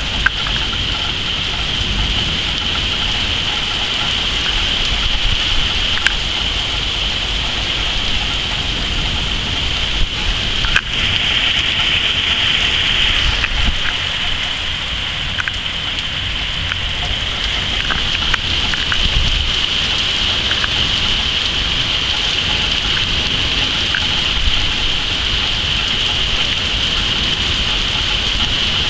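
Heavy rain pouring down in a steady hiss, with scattered sharp ticks of drops hitting hard surfaces.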